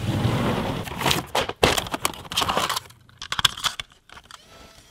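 Handling noise: rustling and clattering for about the first three seconds, then a few separate sharp clicks as a MiniDV tape cassette is fitted into a Sony camcorder's tape compartment.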